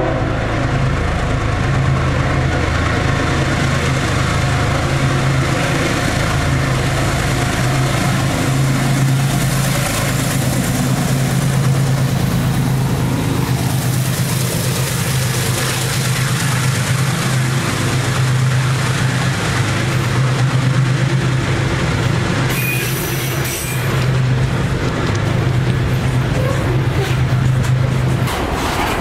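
EMD SD-series diesel-electric freight locomotives working past at close range: a steady low engine drone over the rolling noise of wheels on rail, with a brief high-pitched screech about 23 seconds in. The engine drone drops away near the end, leaving the wagons rolling by.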